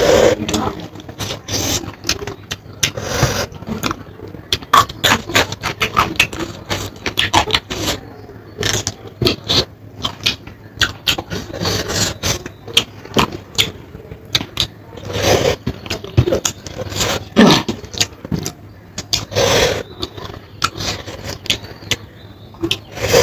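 Close-up eating sounds: chewing and mouth smacks, a quick irregular run of sharp clicks with a few longer wet bursts.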